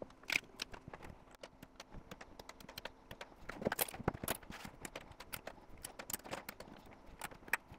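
Light, irregular clicks and taps of 3D-printed plastic parts being popped off a removable printer build sheet and set down, with a few louder knocks about halfway through and near the end.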